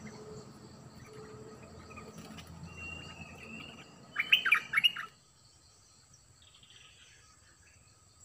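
Bulbul song: a thin drawn-out whistle, then about a second in from the middle a loud burst of quick sharp notes, after which only a faint insect hum remains.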